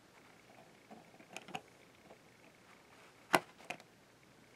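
Fingers pressing on a DVD case's plastic centre hub to release the disc: a few faint plastic clicks and taps, with one sharper click a little over three seconds in.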